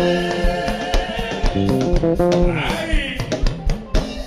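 Live praise-band music in an instrumental break: a plucked guitar and bass line stepping up and down over a steady drum beat, with no singing.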